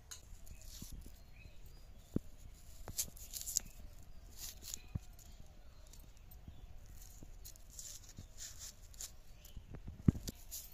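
Dry outer skin being peeled and torn off a red onion against a blade, crackling rustles of papery skin with a few sharp clicks, the loudest near the end.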